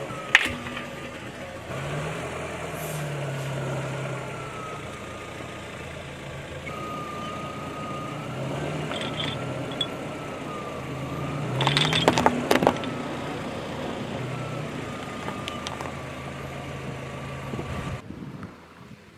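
Car running as it rolls slowly, with a burst of crunching and cracking about twelve seconds in as the tyre crushes objects beneath it; the sound cuts off suddenly near the end.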